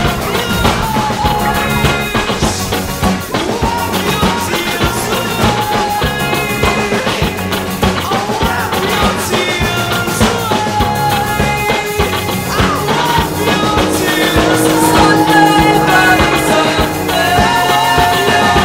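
Rock song with a singing voice and drums.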